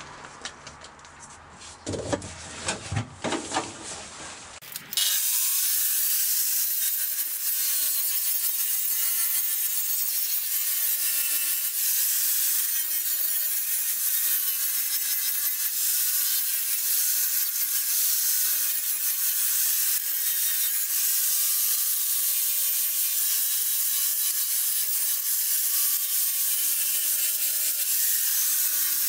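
A few knocks and clicks, then about five seconds in an angle grinder starts and runs steadily, its abrasive disc stripping rust and paint off the sheet-steel wheel arch back to bare metal: a loud grinding hiss over a steady motor whine.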